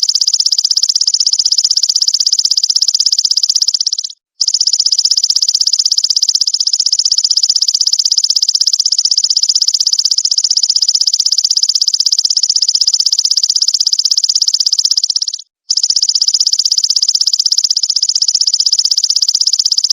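Belalang emas (golden grasshopper) stridulating: a continuous high-pitched buzz made of very fast pulses, broken by two short silent gaps, about four seconds in and again about fifteen seconds in.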